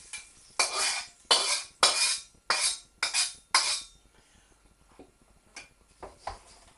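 Utensil scraping the last of the pan juices out of a wok over the plated stir fry: six short rasping strokes about half a second apart, then a few faint ticks.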